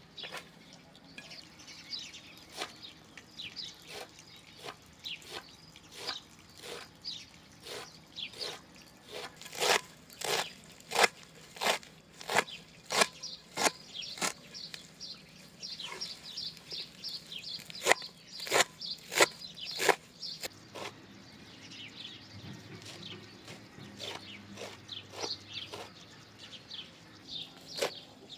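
Irregular sharp knocks, about one or two a second, loudest in the middle stretch, with small birds chirping throughout.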